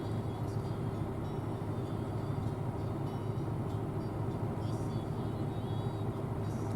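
Combine harvester running steadily in corn, its diesel engine and threshing machinery making an even low drone that holds at one pitch.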